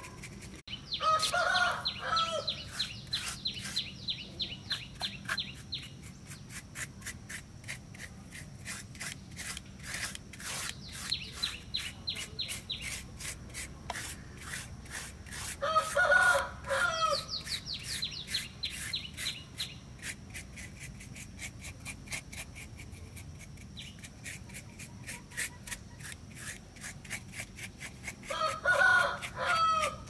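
A rooster crows three times: about a second in, around sixteen seconds in, and near the end. Under the crowing runs a steady scratching of a paintbrush working thick paint into rough concrete, with a high rapid trill now and then.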